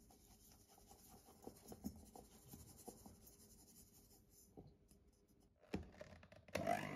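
Sugar poured into a stainless steel mixing bowl: a faint gritty hiss with light ticks of falling grains. Near the end an electric hand mixer switches on with a click and its motor whine rises as it gets up to speed.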